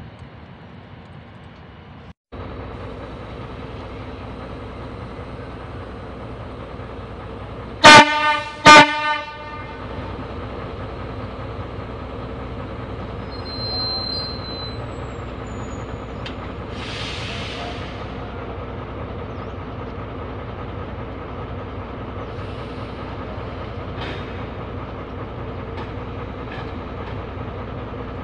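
D20E diesel locomotive running with a steady engine hum, sounding two short, loud horn blasts about eight seconds in.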